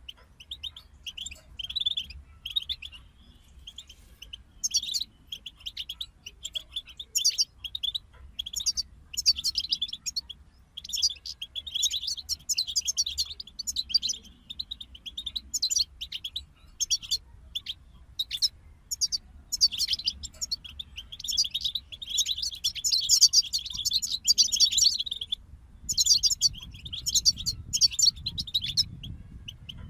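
European goldfinch song: fast, high twittering and trills in long phrases broken by brief pauses.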